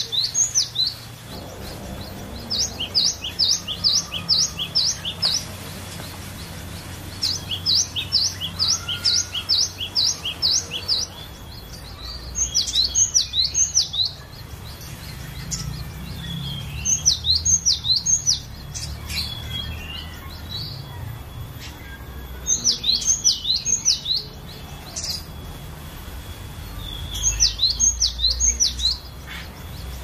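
Cinereous tit (glatik batu) singing: about six bouts of a high, sharp note, sweeping downward, repeated several times in quick succession, with pauses of a few seconds between bouts.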